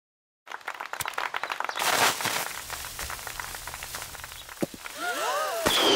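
Fireworks going off: crackling and hissing, then several whistles that rise and fall in pitch about a second from the end, followed by a sharp bang.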